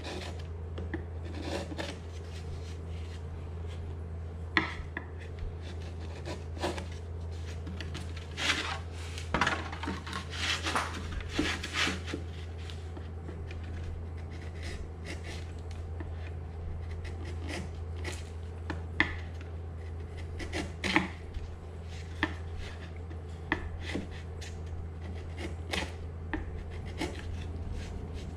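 Hand chisel paring wooden guitar-top braces: scattered short scraping cuts and light taps, coming thickest in a run about eight to twelve seconds in. A steady low hum sits underneath.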